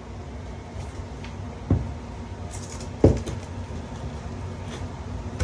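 Two knocks and a few light clicks of clamps being handled and set against tile, the second knock the loudest.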